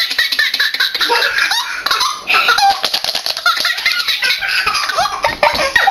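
A baby laughing hard, high pitched giggles coming in quick repeated bursts with short breaths between.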